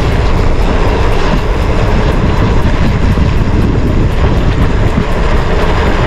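Steady wind rushing over the camera microphone of a mountain bike moving at speed, with the tyres rumbling on the road.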